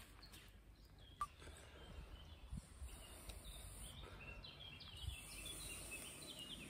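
Faint birdsong: a string of short, high chirping notes repeating over the second half, over a soft outdoor background hum, with a single small click about a second in.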